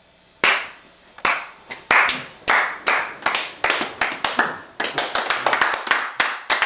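Hand clapping in a small room. It starts as slow single claps that quicken, and about five seconds in more hands join in, so it becomes a few people's overlapping applause.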